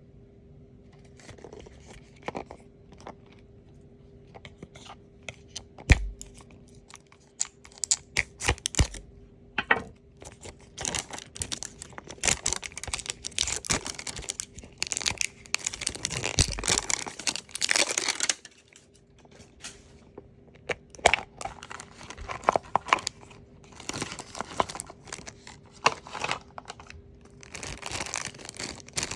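Toy packaging being opened by hand: wrapping crinkling and tearing in long stretches, with scattered sharp clicks and taps.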